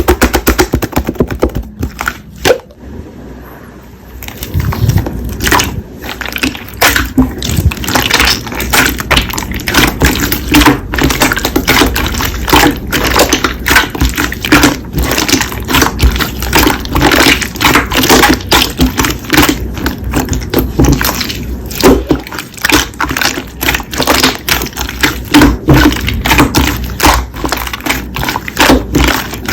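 Slime being squeezed, poked and stretched by hand, giving a dense run of sharp crackling clicks and pops with a quieter gap about two seconds in.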